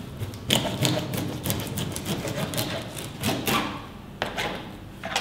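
Large kitchen knife being pressed down through the centre backbone of a brill, cracking through the bone in a series of irregular sharp clicks and crunches, with the blade knocking on the chopping board. Background music plays underneath.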